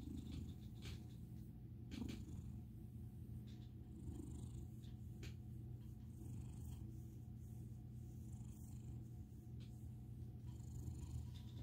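An American Ringtail cat purring steadily while its chin and neck are rubbed.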